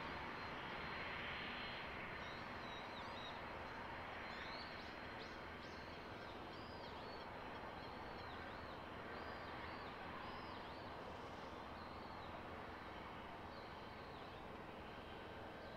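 The Cessna Citation V's twin Pratt & Whitney JT15D turbofans at taxi power, a steady hiss with a thin whine, slowly fading. From about two seconds in, a small bird gives a series of short, quick chirps.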